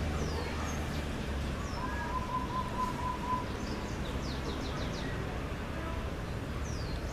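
Small birds chirping: short, high chirps that slide downward, with a quick run of about five near the middle and more near the end, over steady outdoor background noise. A low hum dies away about a second in.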